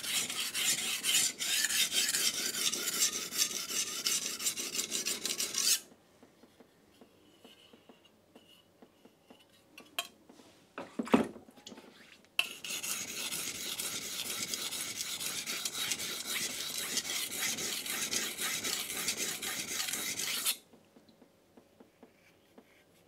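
Chef's knife blade scraping back and forth on a coarse 220-grit King G-45 whetstone, raising a burr along the edge. There are two long spells of steady rasping strokes, with a pause of several seconds between them that holds a couple of short knocks.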